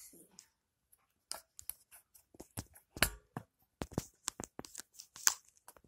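Handling noise from the recording phone being fitted into a ring-light phone holder: irregular clicks, knocks and scrapes of fingers and plastic right on the device. The loudest knocks come about three seconds in and near the end.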